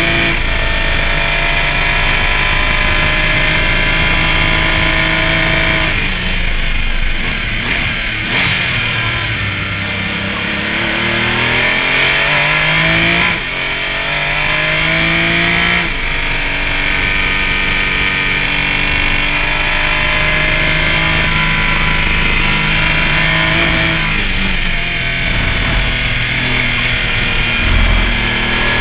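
Porsche Cayman race car's engine under full racing load, held high and steady. It drops in pitch through braking and downshifts, then climbs back up through the gears with a brief break for an upshift. It holds steady again, then drops once more and starts climbing near the end.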